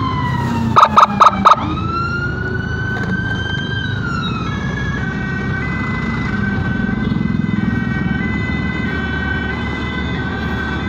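Emergency siren wailing over road and engine noise. A falling tone is cut by four short, loud blasts about a second in, then the tone rises, holds and falls. From about four seconds in it switches to a stepped, alternating tone pattern.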